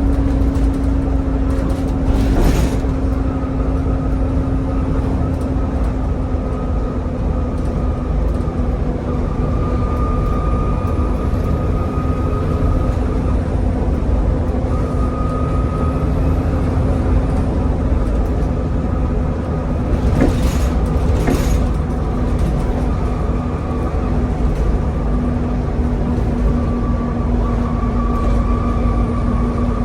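Volvo B7TL double-decker bus, with its Volvo D7C straight-six diesel and ZF gearbox, running steadily at speed and heard from on board. A steady engine drone carries a high whine above it, and a few sharp knocks or rattles come once near the start and twice about two-thirds of the way through.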